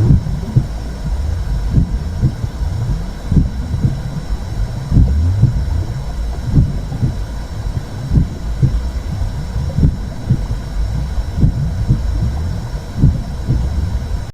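Womb sound for babies: a muffled low rumble with soft, irregular throbbing pulses, which cuts off suddenly at the end.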